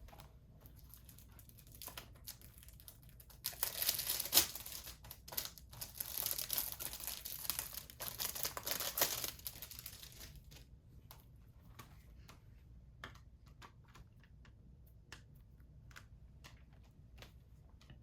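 Plastic wrap being torn and crinkled off a Blu-ray case for about six seconds, then scattered light clicks and taps as the case is handled and opened.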